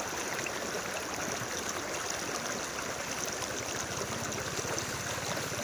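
Steady rush and slosh of floodwater as people wade knee-deep through it.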